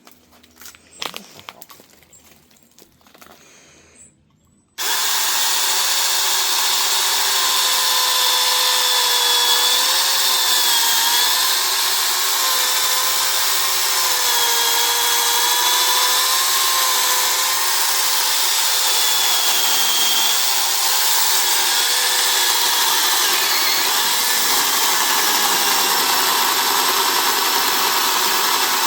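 Supstable battery mini chainsaw with a 6-inch bar, starting suddenly about five seconds in after a few handling clicks. It then runs continuously with a high motor whine that sags and recovers in pitch as it cuts into wood.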